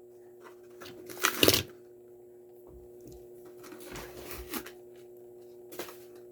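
Small cardboard mystery box being ripped open by hand, with one short, loud tearing rip about a second in, then small rustles and clicks as the packaging is handled and the toy car is shaken out.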